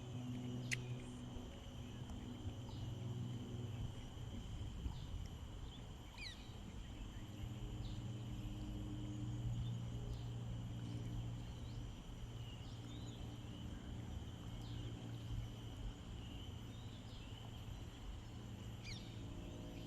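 Outdoor nature ambience: a steady high insect drone and scattered short bird chirps over a low steady hum.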